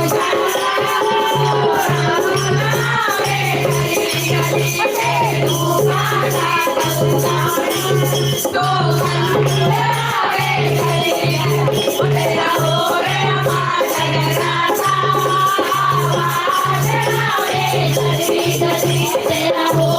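Himachali devotional bhajan kirtan music: a wavering sung melody over rattling hand percussion and a low beat that comes about once a second.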